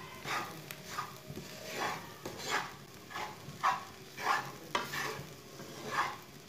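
Wooden spatula stirring and scraping a dry semolina mixture around a non-stick frying pan in short strokes, about two a second, with frying sizzle underneath. The semolina is being dry-roasted to cook off its raw taste.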